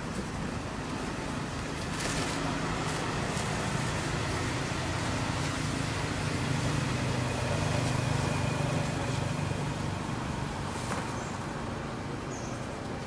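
Low rumble of a motor vehicle engine nearby, swelling through the middle and easing off near the end, with a few faint clicks.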